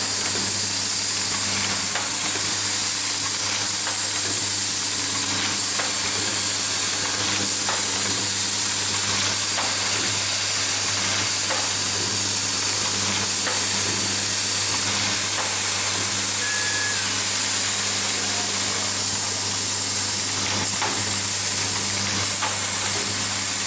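Automated screw-driving assembly machine running: a steady low hum under a constant high hiss, with faint, irregular clicks.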